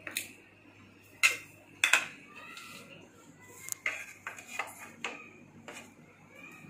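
Kitchen bowls and containers being picked up and set down on a counter and plate: a string of sharp knocks and clinks. The loudest three come in the first two seconds, followed by lighter taps.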